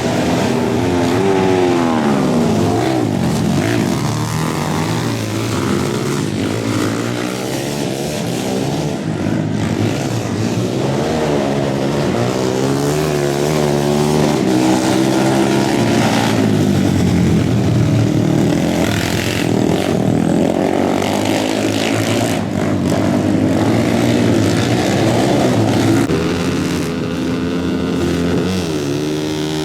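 Several racing engines on a dirt flat track, running and revving at once. Their pitches rise and fall as they accelerate, back off and go past.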